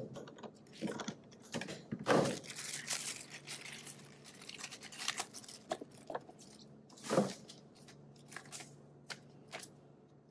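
Hand work with CV axle parts on a stainless steel workbench: scattered clicks and light knocks, with louder dull knocks at the start, about two seconds in and about seven seconds in, and crinkling through the middle.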